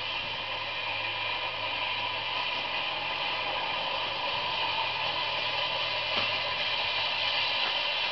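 Freight train's covered hopper cars rolling slowly past: a steady noise of steel wheels on rail, with a single faint click about six seconds in.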